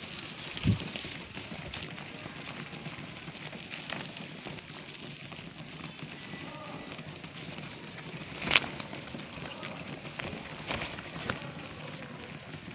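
A flock of domestic pigeons pecking mixed grain from a hand and off the ground: a dense patter of beak taps on seed, with two sharper knocks, one early and one about eight and a half seconds in.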